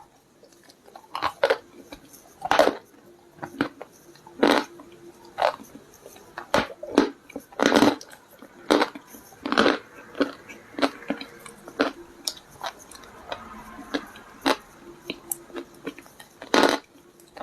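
Hard clay stones crunching between the teeth as they are bitten and chewed, in irregular sharp crunches about once a second.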